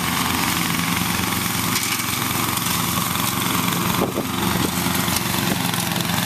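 Riding lawn mower engine running steadily while mowing, with a couple of brief clicks about four seconds in.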